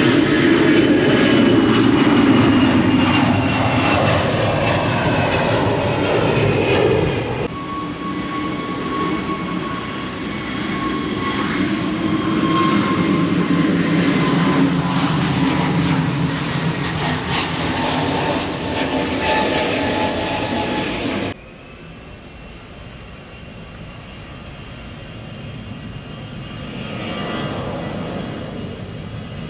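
Jet airliner engines at take-off power: a loud, steady rush with high whining tones that slowly fall in pitch. The sound cuts off abruptly twice, about 7 and 21 seconds in, to another aircraft's take-off. The last one is quieter and swells briefly near the end.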